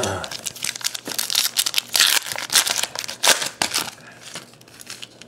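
Foil wrapper of a pack of 2012-13 Panini Prizm basketball cards being torn open and crinkled by hand, in a quick run of crackles that dies down after about four seconds.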